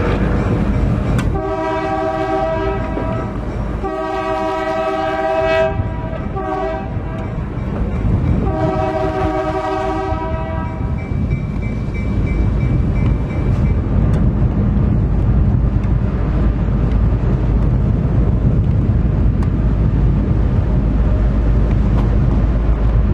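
Locomotive air horn sounding the grade-crossing signal from inside the cab of an EMD GP9R: two long blasts, a short one, then a long one, ending about ten seconds in. Under it and after it, the diesel engine runs with a steady drone, along with the rumble of the train on the rails.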